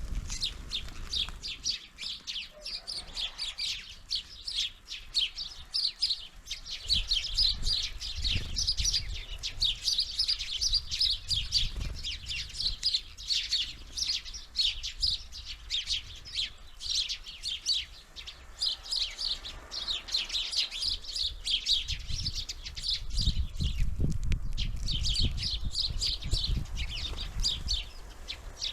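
Many small birds chirping rapidly and almost without pause, with low knocks and rumbles now and then, heaviest near the end.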